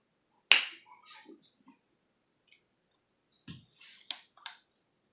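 A few scattered sharp clicks and soft smacks in a quiet small room. The loudest is a sharp click about half a second in; a brief low thump comes about three and a half seconds in, followed by a few more clicks.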